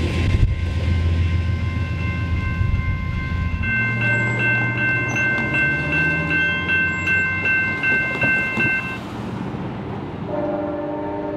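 A passing train's low rumble for the first few seconds, then a bell ringing rapidly, about twice a second, for around five seconds. Near the end, an approaching Amtrak Surfliner train sounds its horn, a steady chord of several notes.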